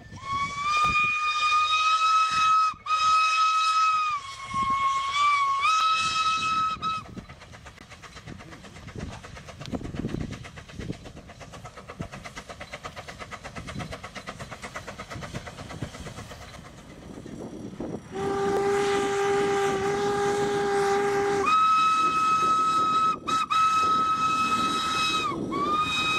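A 1945 Franco-Belge 040 narrow-gauge steam locomotive sounds its whistle in several blasts, the pitch dipping briefly midway. Then comes a quieter stretch of steady, rhythmic exhaust chuffing. Near the end a deeper steady tone sounds for about three seconds, and the high whistle blows again in several more blasts.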